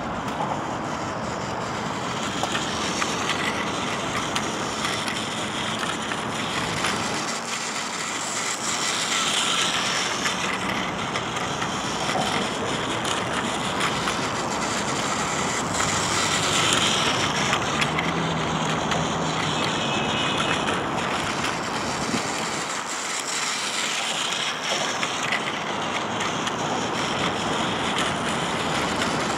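Battery-powered Plarail Spider-Man toy train running on its plastic track: a steady mechanical whirr from its motor and gears, with faint clicks, swelling and easing as the train comes and goes.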